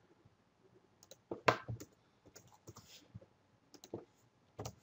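Computer keyboard keys tapped in scattered, irregular clicks, a few in quick clusters, the loudest about one and a half seconds in.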